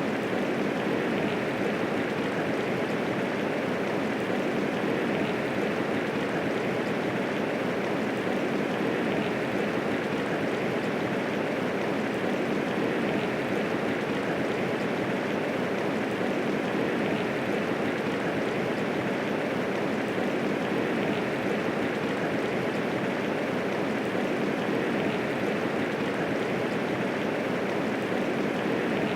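Steady medium rainfall, a dense, even hiss of drops with no thunder.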